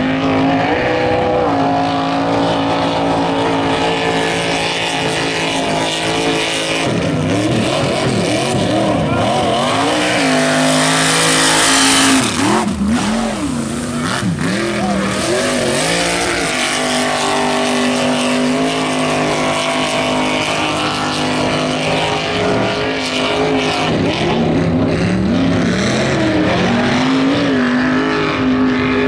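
Lifted mud-bog trucks running hard through a mud pit, their engines revving and rising and falling in pitch as the drivers work the throttle. About twelve seconds in there is a loud rush of noise as a truck passes close by.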